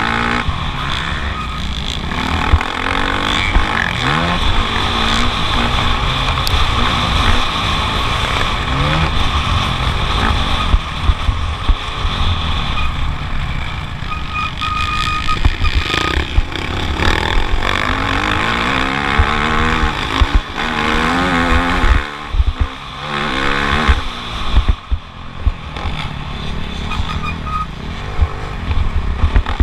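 Motocross bike engine revving hard, its pitch repeatedly rising and falling as the throttle is opened and shut, with several brief drops in level. Under it runs a heavy low wind rumble on the microphone.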